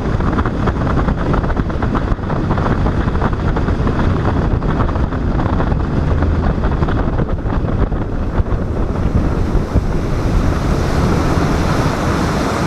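Wind buffeting the microphone, with rushing water underneath, as on a boat under way.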